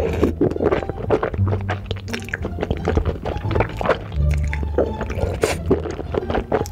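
Wet mouth sounds of eating cheesy tteokbokki: slurping and chewing, many short sticky clicks, over background music with held deep bass notes.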